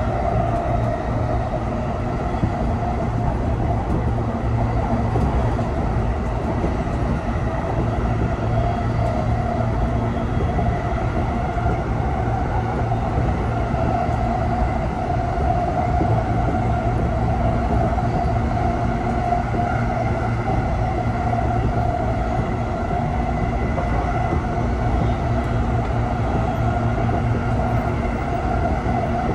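Steady running noise heard inside a JR East E233 series 0 electric train's motor car (MoHa E233-71), running between stations.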